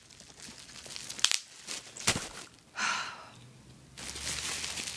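Small-bubble plastic bubble wrap being squeezed by hand: a few sharp single pops, most clearly about one and two seconds in, and crinkling plastic that grows denser near the end.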